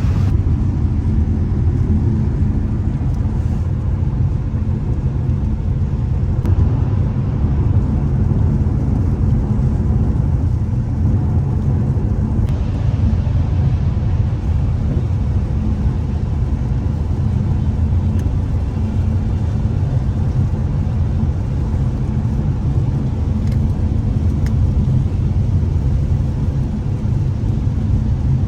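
Mercedes-AMG C63's 4.0-litre V8 running at a steady cruise, a low, even drone heard from inside the car together with road noise.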